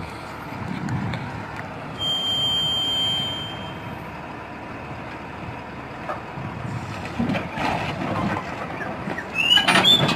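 Tow truck engine running as its crane pulls on an armoured vehicle. About two seconds in, a high steady tone sounds for a second and a half, and a few knocks come later.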